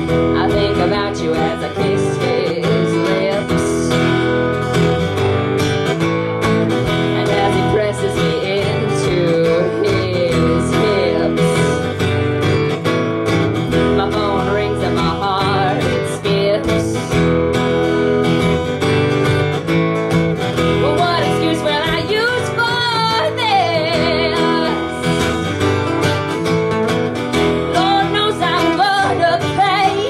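Live acoustic country band playing a song, with strummed acoustic guitar under a wavering lead melody line.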